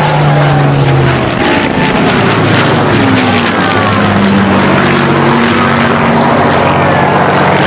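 Single-engine piston fighter planes flying past overhead: a loud, steady propeller-engine drone whose pitch slides down near the middle as they pass.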